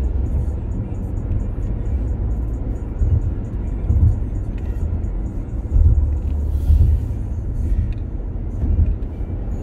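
Low rumble and road noise of a car driving, heard from inside the cabin, with music playing over it.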